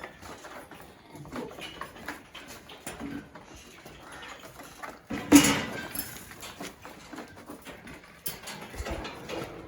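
Goats moving about in a pen, hooves scuffing and tapping on the floor, with one loud call about five seconds in.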